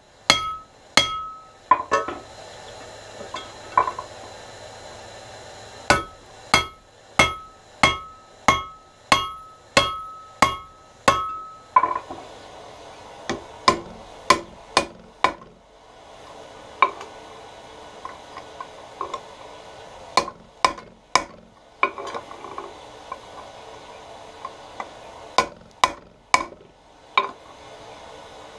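Blacksmith's hammer striking hot iron on an anvil while forging bolt tongs, each blow ringing briefly. There are quick runs of about two blows a second, a pause of a few seconds, a second run, then lighter, more scattered taps for the rest of the time.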